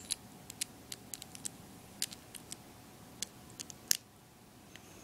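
Small plastic LEGO pieces clicking and snapping as fingers handle them and press them together: irregular sharp clicks, with one louder snap near the end.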